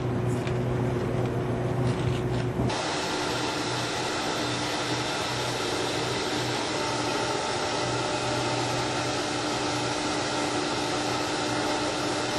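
A motor-driven machine with a steady whine and rushing air, like a vacuum or blower, starts abruptly about three seconds in and runs steadily. Before it, a low electrical hum with a few light clicks.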